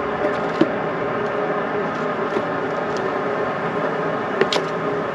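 A steady hum and hiss with faint constant tones running through it, broken by a few short light clicks, about half a second in and again near the end.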